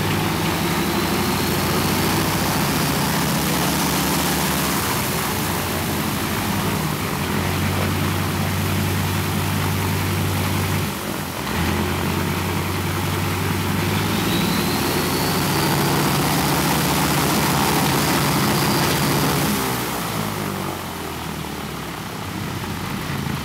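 Ilyushin Il-14T's Shvetsov ASh-82T radial piston engine running up on the ground, its propeller turning. It runs steadily at high power, with a brief dip about eleven seconds in, and the power eases off near the end.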